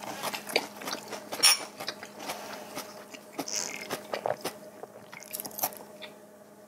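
Close-miked eating and drinking sounds: chewing, mouth clicks and swallowing gulps from glasses of drink, in short, irregular bursts.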